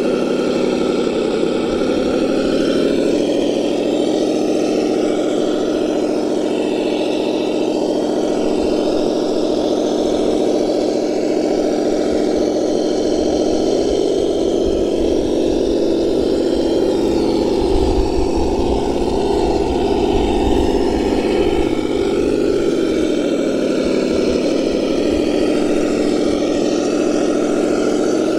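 Simulated engine sound from the Reely sound module in a 1:10 scale Ford Bronco RC crawler, a steady engine note played through its small speaker. The pitch rises and falls gently as the truck is driven, as if the engine were revving lightly.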